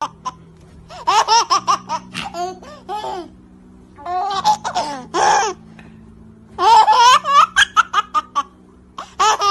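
High-pitched laughter in four bursts of quick, repeated ha-ha's, with a faint steady low hum in the pauses.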